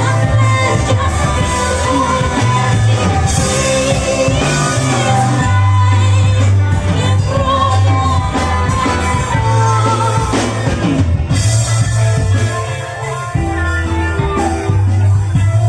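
A band playing live, with a singer's voice over a heavy low bass line, guitars and cymbals. The bass drops out briefly shortly before the end.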